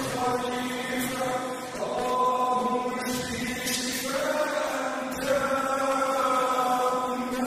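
A man reciting an Arabic dua (supplication) in a calm, melodic chant, drawing out long held notes that shift in pitch every second or two.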